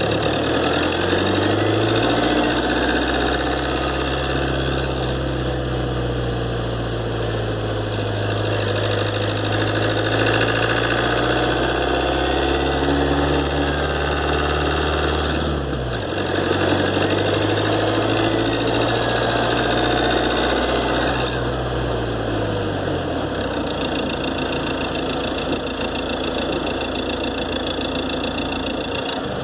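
Ford Transit 2.2 diesel engine heard from under the bonnet while driving, its revs building and dropping twice, then running lower. A turbocharger whistle rises and falls with the revs; the owner takes it for an imbalance left after a turbo rebuild that did not cure the whistle.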